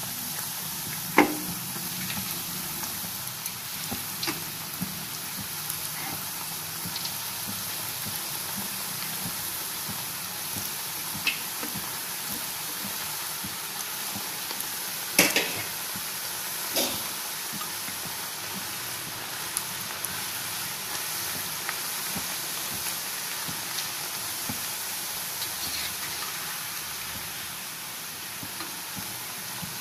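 Nacho chip triangles of corn dough deep-frying in hot oil in a kadhai on low heat: a steady sizzle. A few sharp knocks of a metal spoon against the pan come through it, the loudest about fifteen seconds in.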